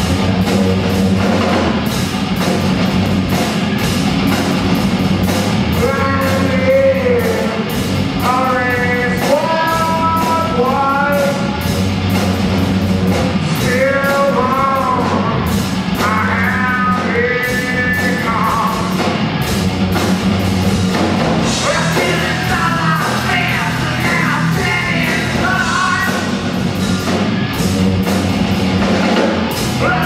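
Rock band playing live: electric guitar, bass and drum kit in a dense steady wall of sound, with a lead vocal singing melodic lines from about six seconds in, breaking off briefly and coming back in after about twenty seconds.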